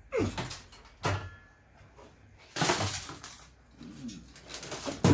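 Clatter, knocks and scraping of metal parts being handled while electronic equipment is pulled apart for scrap, in several short bursts with a louder stretch in the middle.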